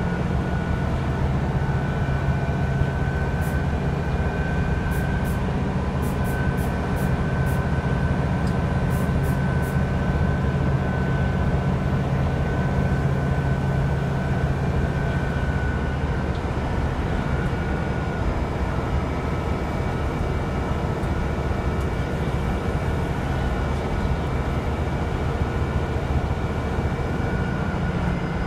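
Diesel bus engine and drivetrain running under way, heard from inside the passenger saloon: a steady low drone with a thin high whine held over it. The low drone eases a little past halfway and comes back near the end.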